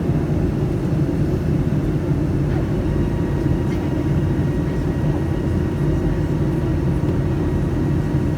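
Steady cabin noise of a Boeing 757-200 airliner: an even, deep rumble of engine and airflow with faint steady whine tones above it.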